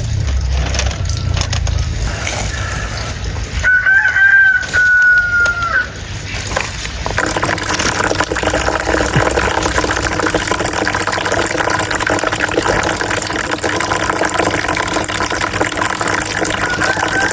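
A rooster crows once with a long drawn-out call about four seconds in. From about seven seconds a steady rush like running water sets in, and a fainter crow sounds near the end.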